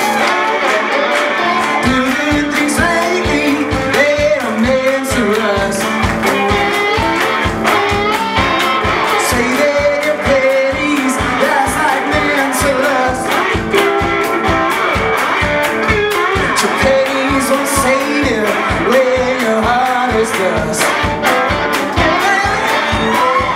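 Live rock band playing: sung lead vocal over electric guitar and harmonica, with a steady kick-drum beat that comes in about two seconds in at roughly two beats a second.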